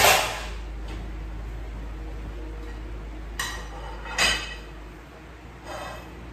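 Kitchen clatter of things handled on a stone countertop: one loud clunk at the start, then three lighter knocks and clinks spread through the next few seconds.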